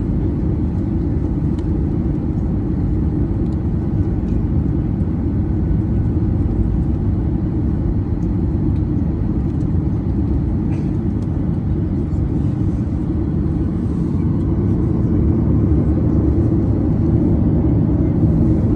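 Steady low rumble of a Boeing 737-800's CFM56-7B engines and airframe, heard inside the cabin while the airliner taxis, growing a little louder near the end.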